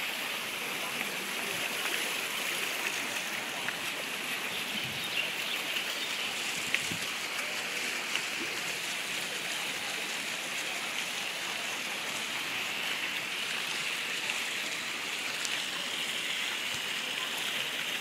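Steady rushing splash of a ground-level plaza fountain, its water jets spouting up from the paving and falling back onto the wet stone.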